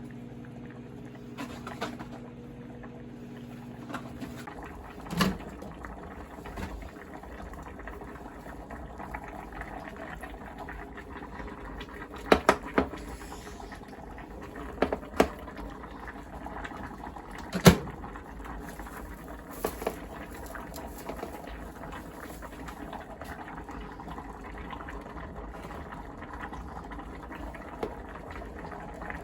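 Pot of doenjang stew bubbling at a boil, with scattered sharp clinks of utensils. A steady low hum stops about four seconds in.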